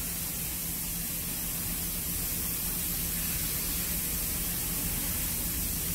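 Steady background hiss with a low, even hum underneath; no distinct knocks or clicks.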